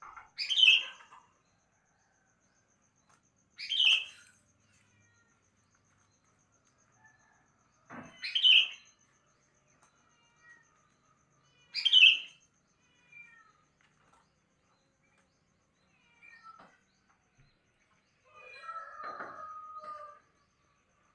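Sooty-headed bulbul (kutilang) calling: four short, loud calls about four seconds apart, then softer notes and a longer, lower call near the end.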